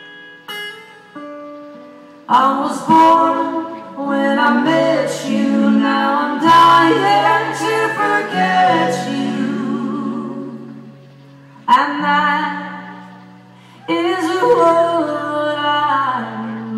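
Live singing in vocal harmony: a few soft held notes ring, then several voices come in loudly about two seconds in, holding long notes with vibrato. The singing fades away twice and comes back in each time.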